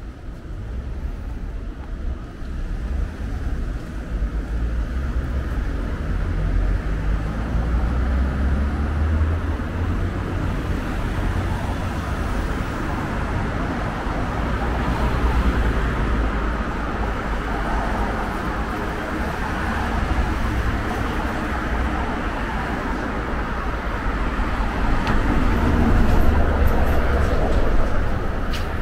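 Road traffic on a busy city street: a steady rumble of vehicles that grows louder near the end.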